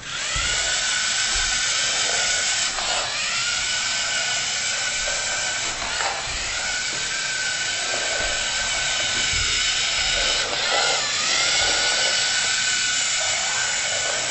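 LEGO Mindstorms robot's two electric drive motors whining steadily as it drives over a wooden floor. The pitch dips and glides back up a few times as the robot turns away from obstacles.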